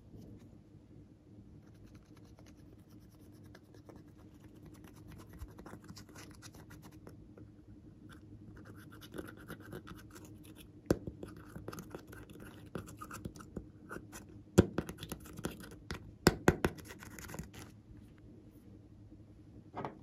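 Metal points of small scissors scraping and picking pressed eyeshadow powder out of a palette pan: a run of fine, dry scratching that grows busier in the second half, broken by several sharp clicks.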